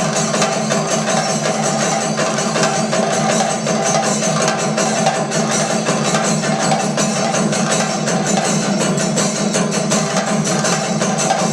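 Thayambaka on Kerala chenda drums: sticks striking the drumheads in a fast, unbroken stream of strokes, with hand cymbals keeping time.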